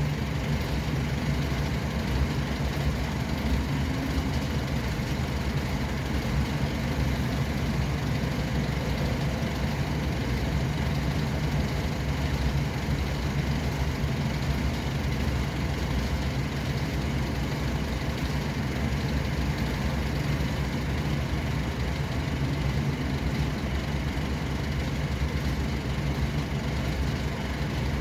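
Steady road-vehicle noise: a continuous low engine and tyre rumble with an even hiss over it, unchanging throughout.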